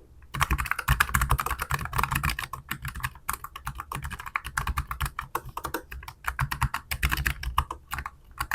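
Fast typing on a Keychron K15 Pro low-profile mechanical keyboard fitted with Gateron low-profile Banana switches: a dense run of quick key clicks with brief pauses.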